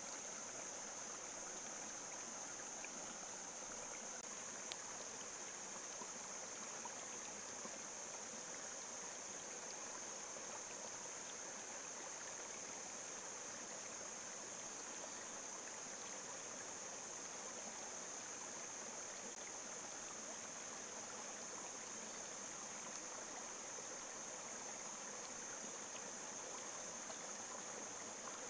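Steady rush and trickle of a shallow rocky forest stream, with a constant high-pitched whine over it.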